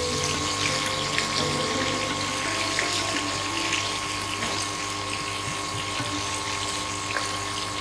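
Marinated chicken pieces sizzling as they shallow-fry in hot oil in a non-stick pan, a constant fine crackle, over a steady mechanical hum.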